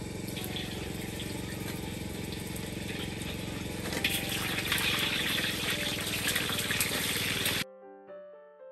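Tofu and boiled eggs going into a wok of hot oil, which breaks into loud sizzling and spitting about four seconds in, over a steady low hum. The sizzle cuts off abruptly near the end, giving way to soft piano music.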